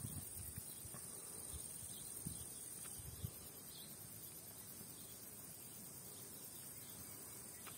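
Faint, steady high-pitched chirring of crickets. A few soft low thumps in the first three seconds.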